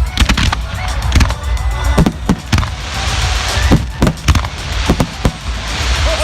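Aerial fireworks bursting in quick, irregular succession with sharp bangs, and a crackling hiss about halfway through and again near the end.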